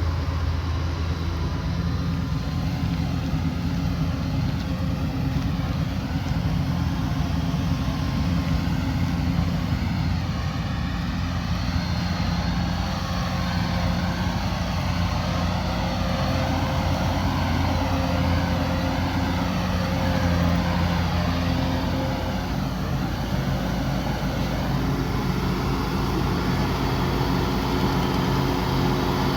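Kubota DC105X combine harvester's diesel engine running steadily while it harvests rice, a constant mechanical drone. The low engine note changes a little a few seconds before the end.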